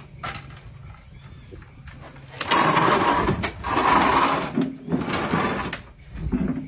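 Small engine running low, then revved hard for about three seconds from roughly two and a half seconds in, easing off near the end.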